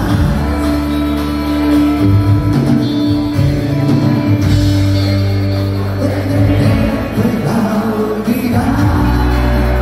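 Rock band playing live: electric guitars, bass guitar and drums, with singing. The bass moves to a new note every second or two.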